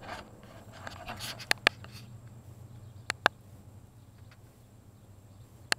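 Handling noise from a small camera being picked up and moved: three pairs of sharp clicks, about a second and a half apart, over a faint low hum. The mower engine is already off.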